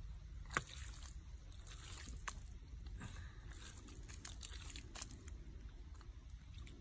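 Hands digging and scooping in thick wet mud: soft squelches and slops with scattered sharp clicks, the sharpest about half a second in, over a faint low rumble.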